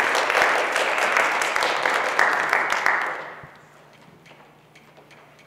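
Audience applauding, dying away about three seconds in and leaving only a few faint taps.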